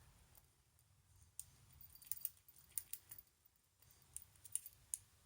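Faint, irregular metallic clicks and scrapes of a hook pick working the pins inside a small brass pin-tumbler padlock, a Squire Lion LN2, coming in short clusters.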